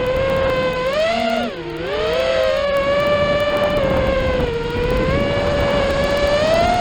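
FPV racing quadcopter's brushless motors whining, the pitch rising and falling with the throttle. About a second and a half in, the pitch drops sharply and the sound briefly quietens, then climbs back up as throttle is reapplied.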